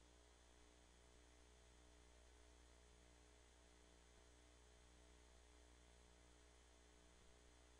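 Near silence: a steady low electrical hum, like mains hum on the audio line.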